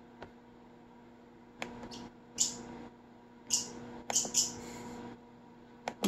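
Scattered short clicks and brief breathy smacking sounds, about a dozen spread through the seconds and loudest near the middle, over a steady low hum.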